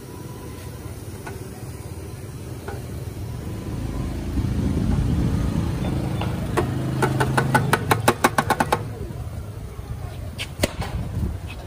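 An electric giò grinder, a motor-driven bowl for pounding meat paste, running with a steady mechanical hum that builds from about four seconds in. A rapid run of clicks, about eight a second, comes near the middle, and the hum eases off after about nine seconds.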